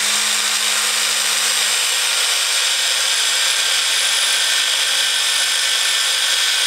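Handheld electric drill with a 3.5 mm bit running at a steady high whine, drilling a pilot hole into a broken motorcycle brake disc bolt.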